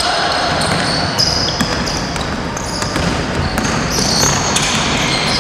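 Basketball game on an indoor court: a ball bouncing on the floor and sneakers squeaking in short high-pitched chirps as players run, over a steady background of hall noise.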